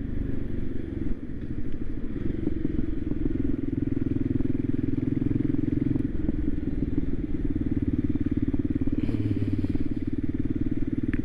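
Voge 300 Rally's single-cylinder engine running steadily at cruising speed, its firing pulses even and unchanging.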